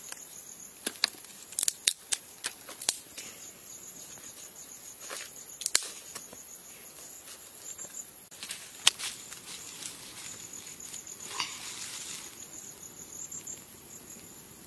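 Insects chirping steadily in a high, pulsing trill, with scattered sharp snaps and crackles from dry sticks as a small twig fire is built and catches.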